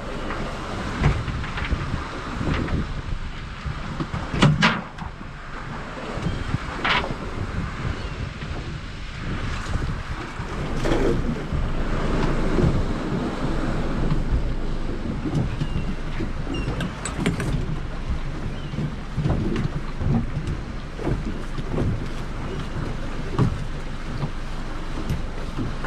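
Water sloshing and lapping around a small fishing boat, with a few sharp knocks.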